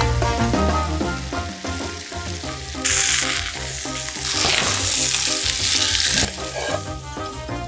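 Eggs and shrimp frying in a nonstick pan: a steady sizzle that starts suddenly about three seconds in and cuts off about six seconds in, over background music.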